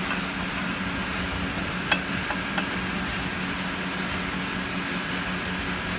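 Dhoop batti making machine running with a steady low hum and hiss, with one sharp click about two seconds in.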